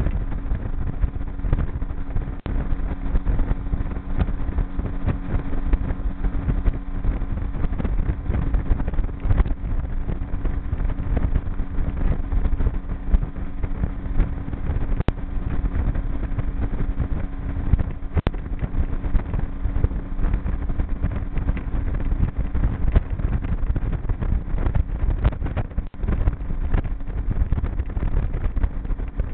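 Outboard motor driving a G3 V167 boat along at a steady cruising speed: a constant drone under the rush of wind and water.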